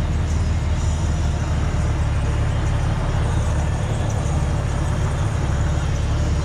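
Honda Gold Wing touring motorcycle idling at a standstill, a steady low rumble.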